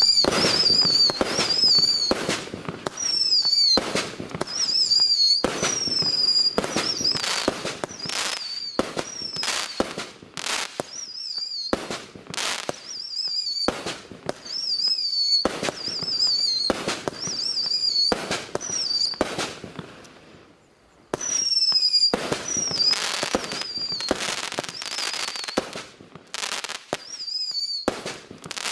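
A Klasek C2525L Loď Duchů (Ghost Ship) 25-shot fireworks cake fires shot after shot, roughly one a second. Each shot is a sharp bang with a high, wavering whistle. The firing pauses for about a second about two-thirds of the way through, then resumes.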